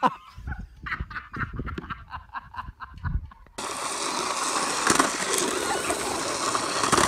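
A sharp knock, then a voice for a couple of seconds. About halfway in, the sound changes abruptly to a loud, steady rough rolling and grinding: the hard plastic wheels of children's low-rider tricycles running down pavement.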